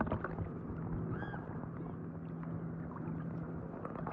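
Water sloshing and bubbling, with a few small plinks and a steady low hum underneath.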